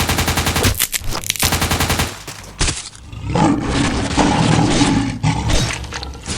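Rapid automatic gunfire as a film sound effect for about two and a half seconds, then a loud, rough roar that lasts a few seconds.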